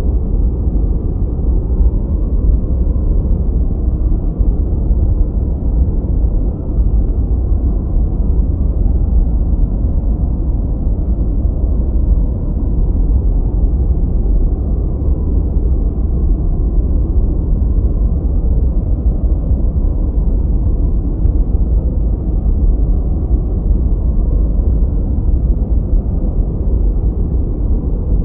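Steady white-noise track, heavy in the bass and with little treble, so it comes across as a deep, even rumbling hush rather than a bright hiss; it does not change.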